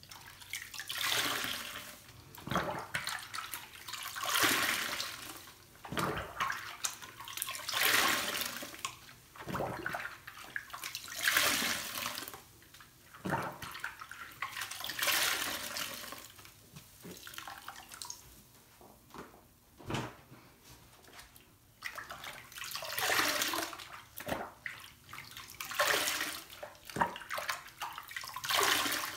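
Soapy wet sponges being squeezed and rinsed by hand in a sink of sudsy water, each squeeze a splashing, sloshing gush of water. The squeezes repeat every two to three seconds, with quieter pauses between them.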